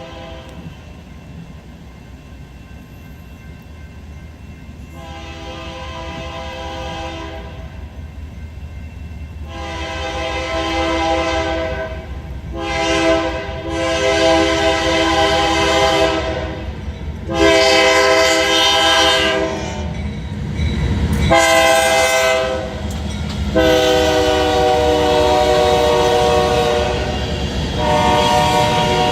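BNSF freight locomotive's multi-chime air horn sounding a series of long blasts, coming closer together and louder, over the rumble of the approaching train, which grows steadily louder.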